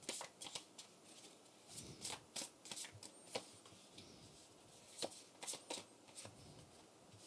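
Tarot cards being flipped face up and laid on the table: light, quick card snaps in small clusters with short pauses between.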